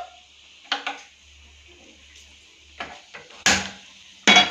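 Kitchen clatter as a non-stick pan is set on a gas stove's grate and a gas lighter is clicked to light the burner. There are short knocks about a second in and near three seconds, then two louder, sharp clanks near the end.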